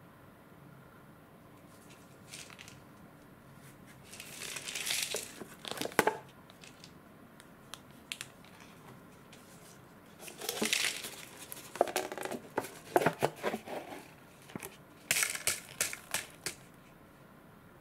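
Cup-noodle packaging being opened by hand: the plastic seasoning sachet crinkles as it comes off, then the foil-paper lid is peeled back. This comes in several short crinkling bouts with sharp little clicks and taps.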